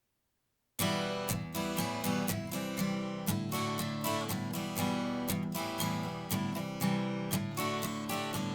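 Acoustic guitar strumming the intro of a country song, starting about a second in with a steady rhythm of strokes.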